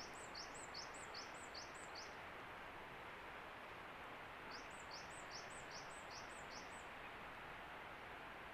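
A small songbird singing a quick, high two-note phrase over and over, about six times in a row, then again after a pause of two to three seconds, over a steady faint outdoor hiss.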